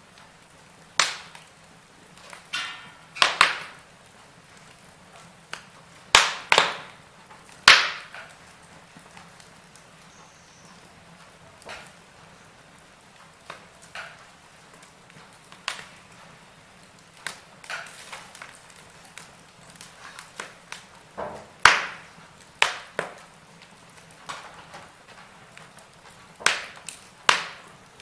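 Wood fire crackling in a fireplace: irregular sharp pops and snaps over a faint hiss, with a cluster of louder cracks a few seconds in and another near the middle.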